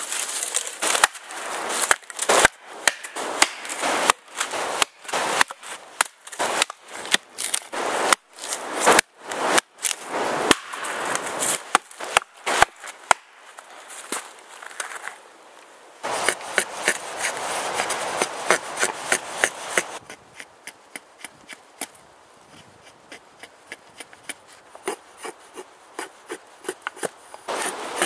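Dry dead branches cracking and snapping in quick, irregular bursts as they are broken up, then a Husqvarna carpenter's axe working wood: a stretch of scraping, then a run of light strikes about twice a second.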